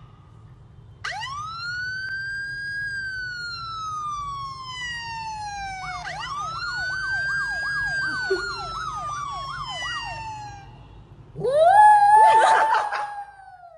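Siren wailing: a long wail that rises and then slowly falls, a second wail with a fast regular wobble, then a louder, rougher rising call near the end.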